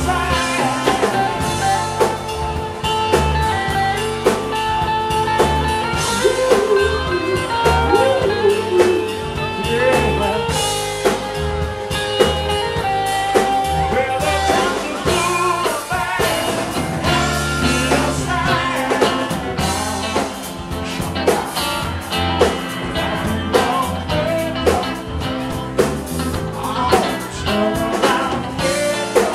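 A live blues-soul band playing at a steady groove, with drum kit, bass, electric guitar and keyboards. A voice sings over it.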